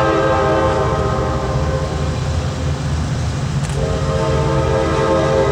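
Diesel freight locomotive's air horn blowing over the low rumble of the passing train. The horn fades about two seconds in and sounds again, strongly, from just before four seconds.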